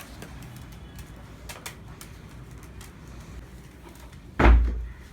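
Cocker spaniel whining faintly, with a few light clicks, then a sudden loud bump about four and a half seconds in.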